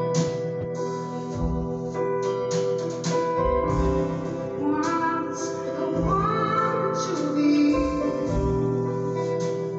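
Live band music: a woman singing over held keyboard chords, with deep bass notes every couple of seconds and drum and cymbal hits.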